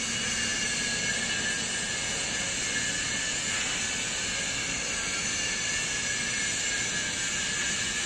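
Hydraulic scrap metal baler running: a steady machine hiss with faint high whining tones.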